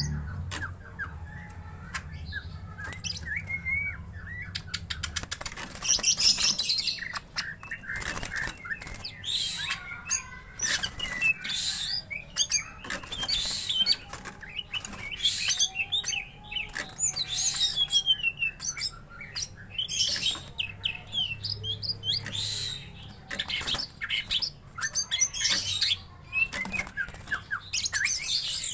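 Caged cucak ijo (green leafbirds) calling at each other in short chirps and whistled phrases, with wings fluttering and clattering against the cage bars as they flit about. The calls and fluttering are the agitated, challenging behaviour of male leafbirds provoked by a rival.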